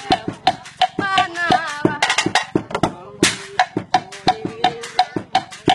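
Homemade percussion played in a steady rhythm of about four strikes a second. The main sound is sticks knocking on a hollow bamboo tube drum with a short woody ring. A splashier, hissier hit comes a little past halfway.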